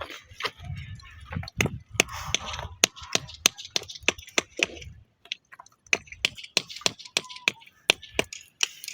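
A string of irregular, sharp clicks and knocks, with a low rumble under them in the first half.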